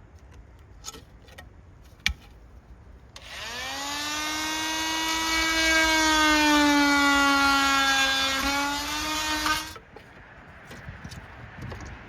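A power drill runs for about six seconds: its whine rises as it spins up, holds steady, drops a little near the end and then cuts off. A few light clicks and taps come before it.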